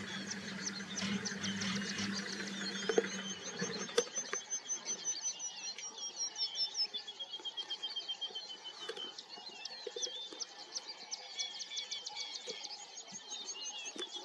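Several wild birds singing and chirping together in fast runs of repeated high notes, over a low steady hum that stops about four seconds in, with a couple of sharp clicks just before it stops.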